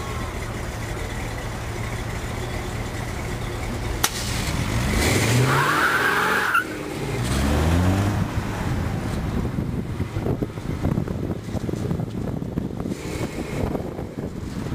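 Modified Chevrolet C30 dually pickup's engine idling steadily, then revving up hard as the truck pulls away, the pitch rising twice with a short break between them. The rest is rushing wind on the microphone and road noise as the camera car follows.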